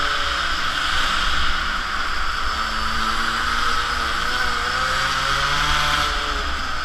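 Polini mini moto's small two-stroke engine running hard, its pitch rising and falling as the throttle changes. Wind rumbles on the bike-mounted microphone throughout.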